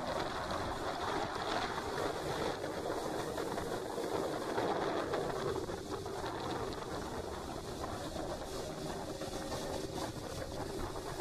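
Small boat under way, with water rushing and splashing along the hull and wind buffeting the microphone in a steady, even noise.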